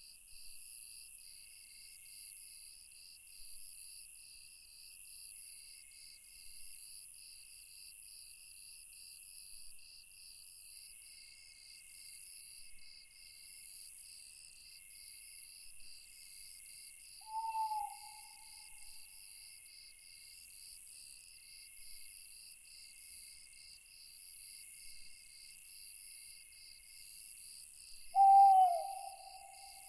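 Night chorus of crickets and other insects, a steady pulsing chirring, with an owl hooting twice: a short hoot about seventeen seconds in and a louder one near the end.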